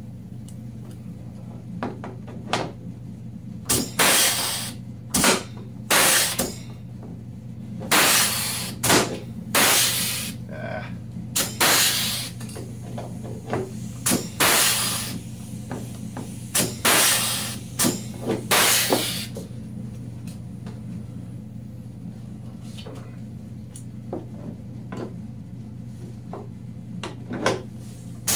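Pneumatic pop-rivet gun setting rivets, each pull a short burst of hissing air, often in quick pairs. About fifteen come in the first two thirds, then a lull, then a few more near the end, over a steady low hum.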